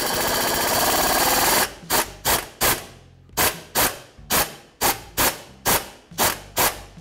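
Pneumatic wrench on an extension and 14 mm socket working at a stuck engine-block coolant drain plug to break it free. It makes one continuous run of about a second and a half, then a string of short trigger bursts, roughly two to three a second.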